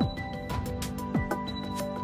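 Instrumental background music with a steady beat of drum hits and held notes.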